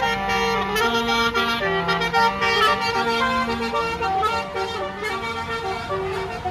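Tour bus basuri telolet musical horn playing a tune: a run of held horn notes stepping up and down in pitch, each lasting from a fraction of a second to about a second.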